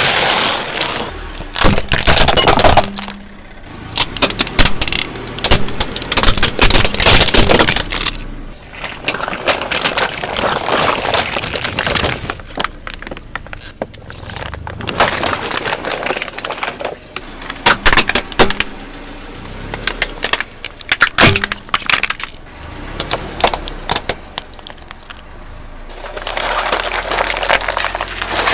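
Objects crunching, cracking and snapping as they are crushed under a car's tyres, in a series of separate bursts of dense crackling with sharp snaps, with quieter stretches of low rumble between them.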